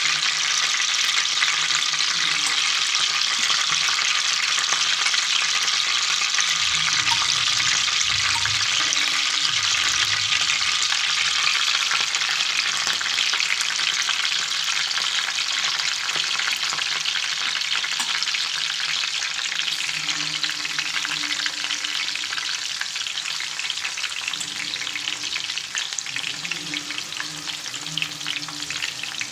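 Hot oil sizzling steadily in a flat iron pan as curry leaves fry and red-chili-marinated white pomfret slices are laid in to shallow-fry. A few low bumps come about a quarter of the way in, and the sizzle eases a little near the end.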